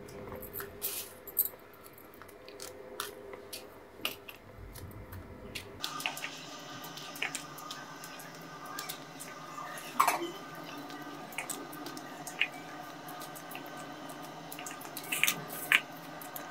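Kitchen knife cutting fresh okra on a cutting board: scattered, irregular soft clicks and taps of the blade, with a louder knock about ten seconds in and a couple more near the end.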